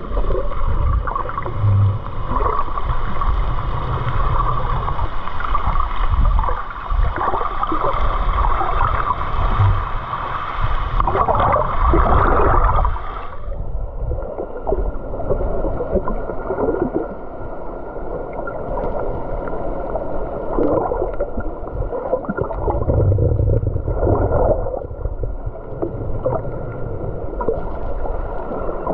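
Muffled sloshing and gurgling of water around a camera held in and under the sea while snorkelling, with uneven low surges and knocks. The sound becomes even more muffled about halfway through.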